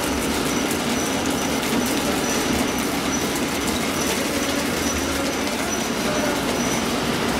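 Flake ice machine running: a steady mechanical drone as the scraper assembly turns inside the freezing drum, with a constant crackle of ice being scraped off the drum wall and a short high chirp recurring about once a second.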